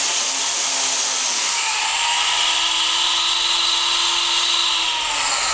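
E-flite Blade CP Pro electric RC helicopter's motor and rotor running with a steady high whine, then beginning to spool down near the end, the pitch falling.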